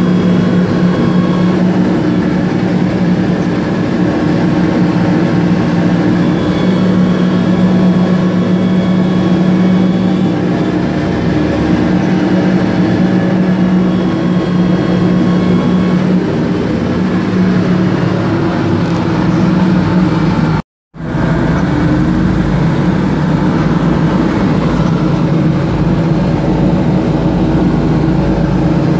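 Wabco 333FT twin-engine motor scraper's Detroit Diesel 12V-71T two-stroke diesel engines running steadily as the machine travels, heard from inside the cab. The sound cuts out for a moment about two-thirds through, and after it the engine note sits lower.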